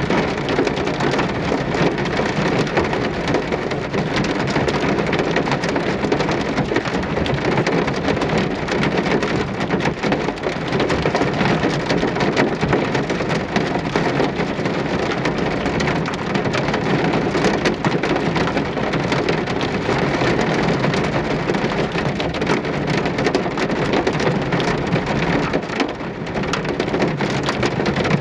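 Steady rain falling, a dense, even patter of countless drops with no pauses.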